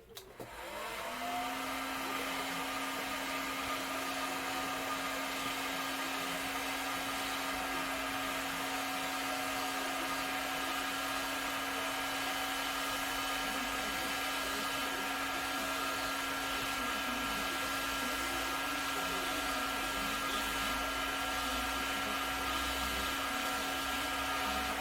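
A small electric motor, blower-like, spins up with a rising pitch about a second in, then runs steadily with a constant hum and a rush of air; it begins to wind down at the very end.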